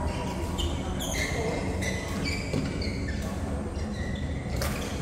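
Court play in a large hall: a few scattered sharp hits and brief high squeaks, like shoes on the floor, over a steady low hum.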